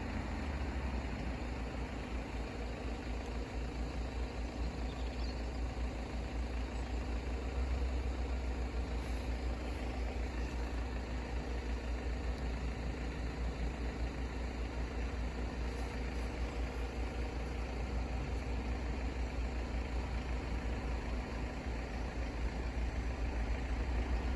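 An engine idling with a steady, low, pulsing rumble that swells a little about a third of the way in.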